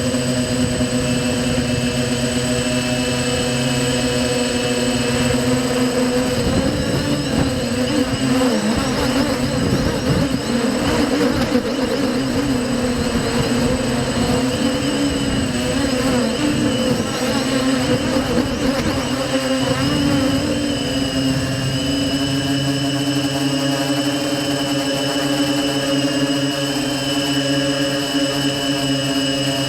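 Quadcopter's electric motors and 5045 propellers whining steadily. From about six seconds in to about twenty-one seconds in, the pitch wavers rapidly up and down as the flight controller speeds and slows the motors, typical of the wobble the uploader is tuning out of the descent with PID settings.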